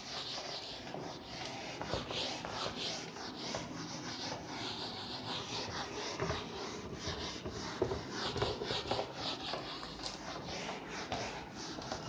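Hand-held duster being rubbed across a whiteboard to erase it: a rapid run of short, dry swishing strokes, several a second.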